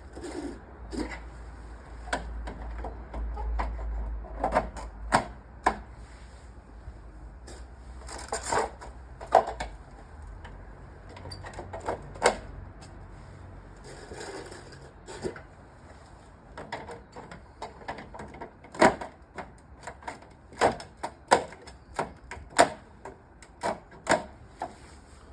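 Irregular clicks and knocks of plastic wall-pod base plates and fixings being handled and fitted against a wall, coming faster near the end.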